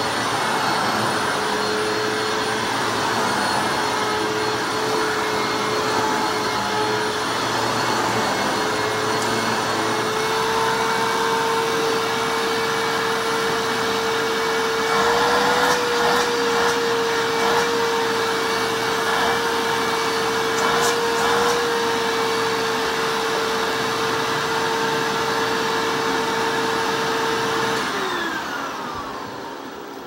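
Hoover WindTunnel U6401-9RM self-propelled upright vacuum cleaner running over carpet with a steady motor whine. About two seconds before the end it is shut off, and the whine falls in pitch and fades as the motor winds down.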